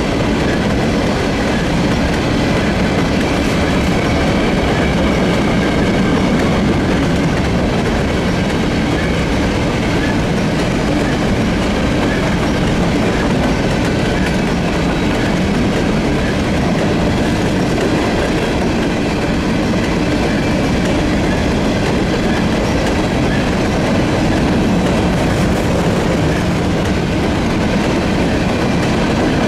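Empty covered hopper cars of a long freight train rolling past: a steady, loud noise of steel wheels running on the rails.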